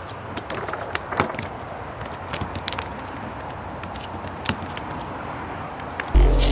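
Mullet flopping on wooden dock boards: irregular sharp slaps and taps over a steady background hiss. Loud music starts near the end.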